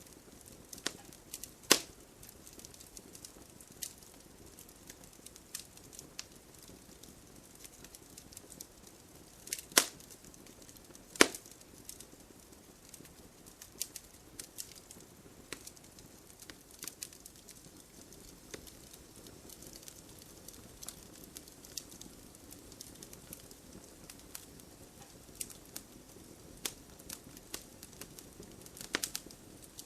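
Wood fire crackling: a faint steady hiss with scattered sharp pops and snaps, a few louder ones about two seconds in, around ten and eleven seconds, and near the end.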